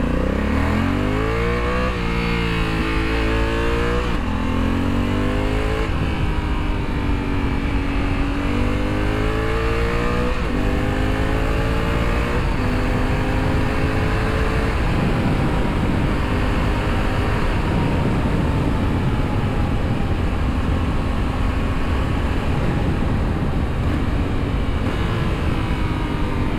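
Honda Africa Twin parallel-twin engine pulling hard under a riding rider. Its revs climb and drop sharply several times in the first half as it changes up through the gears, then settle to a steadier drone at speed under loud wind rush.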